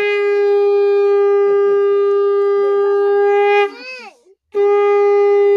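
Conch shell (shankha) blown in two long, steady blasts on one held note. The first breaks off about three and a half seconds in with a short wavering bend in pitch, and the second starts again about a second later.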